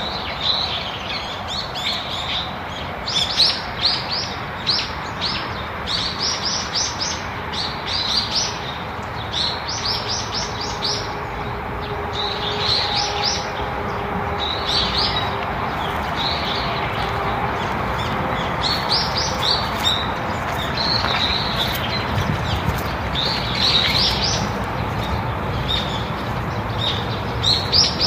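Small birds chirping in quick runs of short, high notes, repeated in clusters, over a steady background hiss.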